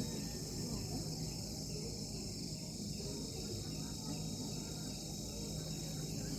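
A chorus of crickets chirping steadily, a continuous high-pitched trilling over a low background rumble.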